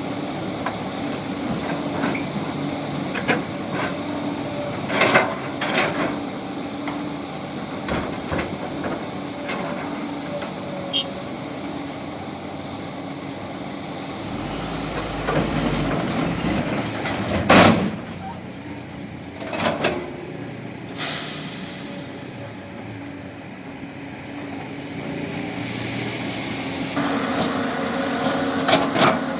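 Heavy diesel construction machinery running steadily, with several loud metallic clanks and, about two-thirds of the way through, a short hiss like an air release.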